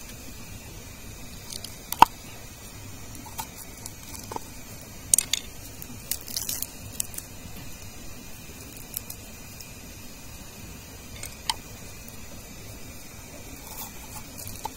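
Hands peeling and trimming fresh roots and stalks with a large knife: scattered small snaps, crackles and tearing sounds, the sharpest a single snap about two seconds in, with a cluster around six to seven seconds.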